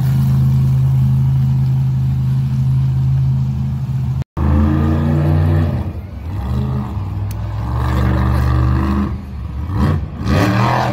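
Monster truck engines: a steady, loud idle, then after a brief dropout about four seconds in, a monster truck's engine revving up and down as it drives on the dirt, with the sharpest rises near the end.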